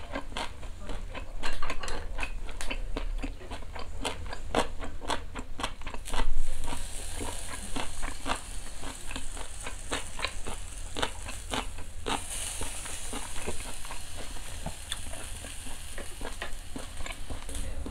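Close-up chewing of grilled marinated pork, with many small wet mouth clicks. From about six seconds in, the sizzle of pork on a small charcoal grill rises, growing stronger about twelve seconds in.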